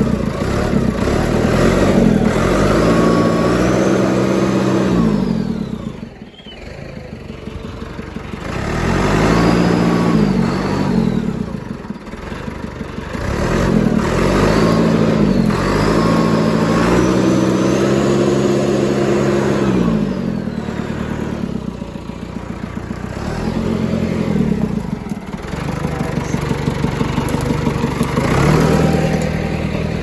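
John Deere 555 crawler loader's diesel engine running under load as the machine is driven, revving up and dropping back again about five times.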